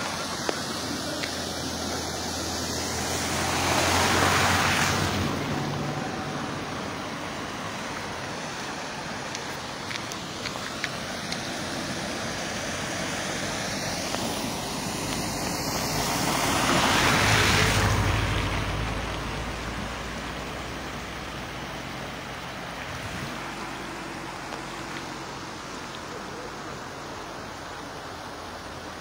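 Cars driving through floodwater on the road pass close by twice, about four seconds in and again just past halfway. Each pass is a swell of tyre spray and engine noise that rises and fades, over a steady background hiss.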